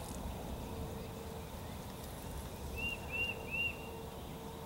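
Three short, arched chirping bird calls in quick succession about three seconds in, over a steady low background rumble.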